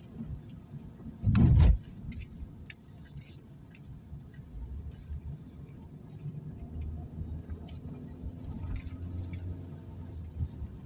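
Car driving on a wet road, heard from inside the cabin: a steady low rumble of engine and tyres with scattered light ticks. About a second and a half in comes one short, loud thud.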